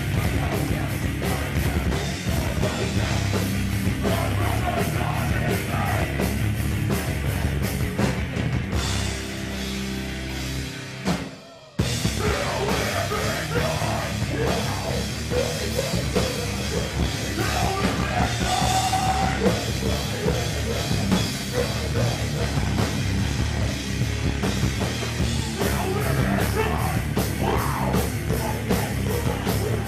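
Live hardcore punk band playing fast, with distorted guitars and pounding drums. About nine seconds in, the band drops to a held, ringing chord that fades away. After a split-second gap the full band comes back in at full volume.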